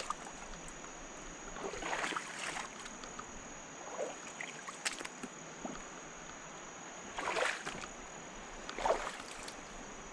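Water sloshing and splashing in several short bursts, a few seconds apart, over a steady hiss of moving river water.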